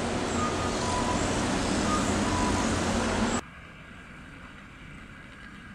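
Steady vehicle traffic noise with a low hum and a few short, faint beeps. It cuts off abruptly about three and a half seconds in, leaving a much quieter background.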